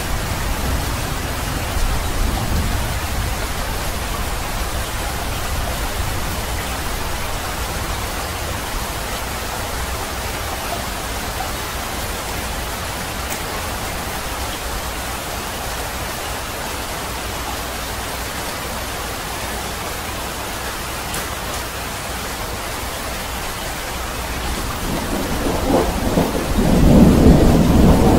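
Steady rain falling, with a low rumble underneath. About 25 seconds in, a roll of thunder builds and becomes the loudest sound near the end.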